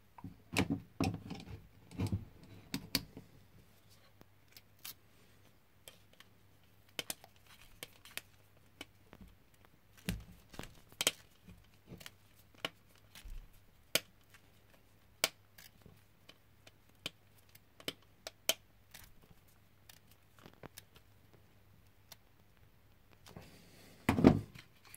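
Hand screwdriver driving a screw into a black plastic RC battery tray: irregular small clicks and ticks of the tool and plastic being handled, about one or two a second, with a louder plastic knock near the end.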